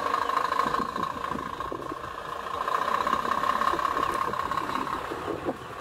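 Scania semi-truck's diesel engine running at low speed as the truck creeps across a wooden plank bridge, with a steady whine running through it.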